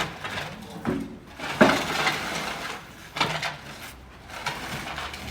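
Several separate knocks and clatters of wood, with a light clinking edge, spaced irregularly about a second apart.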